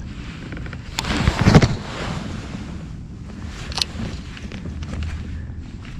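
Handling noise from a kayak angler working a baitcasting rod and reel: a loud rustle about a second in and a sharp click near four seconds, over a low rumble of wind on the microphone.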